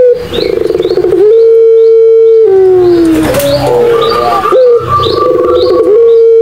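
Puter pelung doves (Madura collared doves) cooing loudly in long drawn-out coos: notes held steady for a second or two, stretches that tremble, and slow falling glides, with calls overlapping. Faint short high chirps sound behind them.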